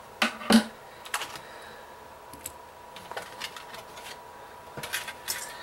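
Plastic strips being cut to free a Bakugan toy from its packaging, with the hard plastic toy and tray clicking as they are handled. There are two loud sharp snaps in the first second, then a few fainter scattered clicks.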